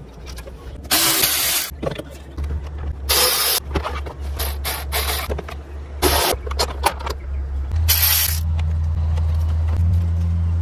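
Hand work on a Razor MX500 electric dirt bike during its strip-down: five short, harsh scraping bursts, each under a second, over a low steady hum that grows louder near the end.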